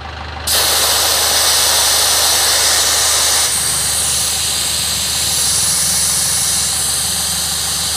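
Air hissing out of a car tyre through its valve stem as the valve is held open to deflate the tyre fully. The loud, steady hiss starts abruptly about half a second in.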